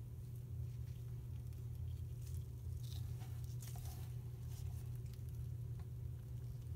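Kinetic sand squeezed and pressed together by gloved hands, giving soft scattered crunches and grainy rustles over a steady low hum.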